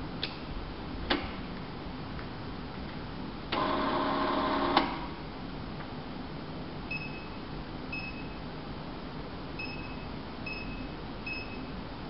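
Banknote counting machine: two clicks, then its motor runs with a steady hum for just over a second and stops with a click. Later its keypad gives five short high beeps as buttons are pressed.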